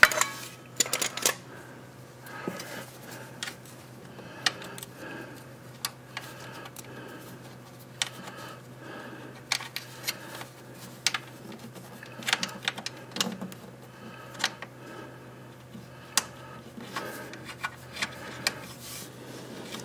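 Irregular metallic clicks and taps of nuts, washers and a hand wrench as mounting nuts are started and tightened, over a steady low hum.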